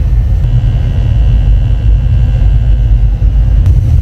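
Gas furnace running: a loud, steady low rumble.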